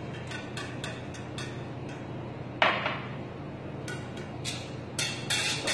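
Metal spoon clinking and scraping against a metal saucepan while custard is stirred into hot milk, a few sharp ticks a second, with a longer scrape about two and a half seconds in and quicker clinks near the end.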